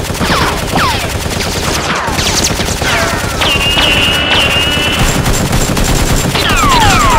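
Rapid, sustained automatic gunfire sound effect standing in for the Nerf blasters, with several falling whines like bullet ricochets and a brief steady high tone near the middle.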